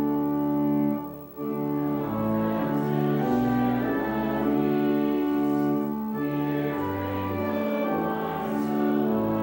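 Church organ playing slow, sustained chords, with a short break between phrases about a second in.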